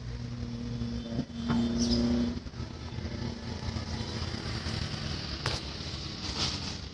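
Steady low rumble of a motor vehicle, heard from inside a car's cabin. A steady hum sounds for about a second, roughly a second and a half in, and a few light clicks and knocks come through.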